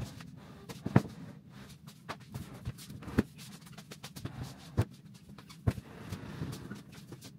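Furniture and household objects being moved around a bedroom: irregular knocks and thuds, the loudest about a second in, then near three, five and six seconds, with smaller bumps between.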